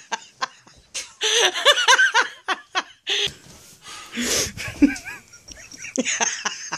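Hearty human laughter in several bursts, with breathy gasps between them.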